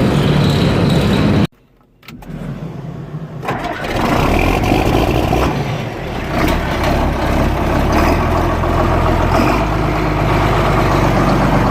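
Loader's engine running loud. It cuts out abruptly about a second and a half in, comes back within half a second and builds up over the next two seconds, then runs steadily.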